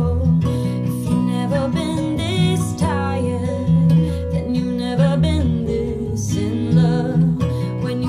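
A song with guitar, bass and a singing voice played back through Revel F226Be floorstanding loudspeakers, picked up at the listening position by a binaural dummy head.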